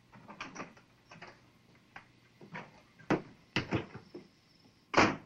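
A string of irregular knocks and bumps over a faint steady hum, with a few louder thuds about three seconds in and the loudest bang just before the end.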